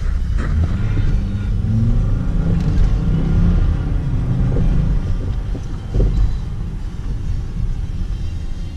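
Car engine running with heavy low road rumble, its note rising about a second in as the car accelerates.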